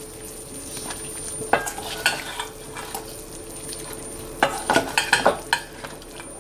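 Pot of soup boiling with a steady bubbling hiss, while potato chunks are added and stirred in. A spoon knocks against the stainless steel pot a couple of times early and in a quick cluster from about four to five and a half seconds in.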